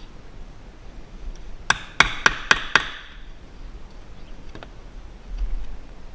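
Hammer striking a wood chisel five times in quick succession, about four blows a second, each with a short ring: chiseling out a hinge mortise in a wooden door jamb. A few faint taps follow.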